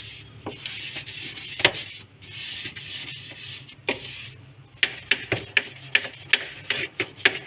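A brush scrubbing the inside of a fridge, with short scratchy strokes that come in quick succession in the second half.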